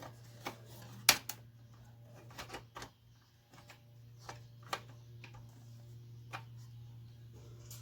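Irregular clicks and taps of tools and small parts handled during the take-apart of an amplifier, about a dozen, the loudest a little over a second in, over a steady low hum.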